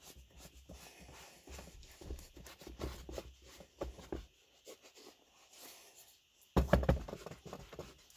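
Soft rubbing, scuffing and tapping from an applicator pad working conditioner into a full-grain leather Red Wing boot and from the hands turning the boot. A louder single thump of the boot being handled comes about two-thirds of the way through.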